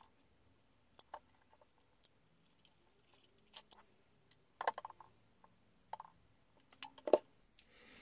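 Scattered light clicks and taps of small tools and parts being handled and set down on a workbench mat, with a small cluster just before the middle and another near the end.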